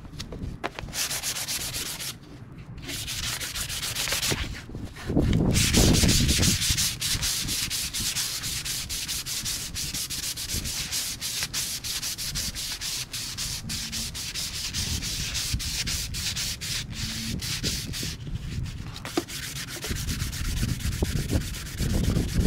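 220-grit sandpaper rubbed by hand up and down a wooden walking stick, a rapid rasping of many short strokes, pausing briefly a couple of times.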